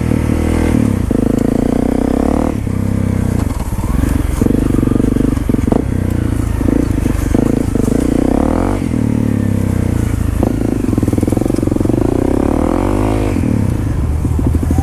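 Single-cylinder four-stroke engine of a 2015 Honda CRF250L dirt bike with a slip-on exhaust, running at low speed, its revs rising and falling a few times with the throttle.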